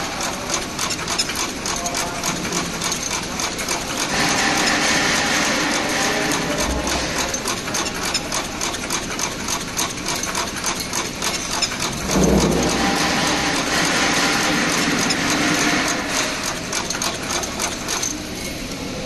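Candle wick cutting machine running, its cutting and tabbing mechanism clicking rapidly and evenly. From about four seconds in a louder whirring joins. It swells again around twelve seconds and eases off near the end.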